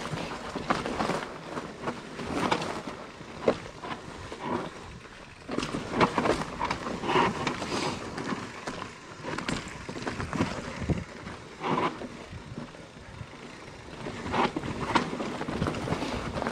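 Mountain bike ridden down a rough trail: tyres rolling over rock and roots, with irregular knocks and rattles from the bike's frame and chain.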